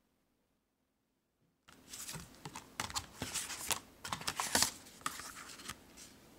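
Silence for about a second and a half, then irregular rustling, scraping and clicking of photo prints and a plastic sleeve being handled, loudest about four and a half seconds in, dying away near the end.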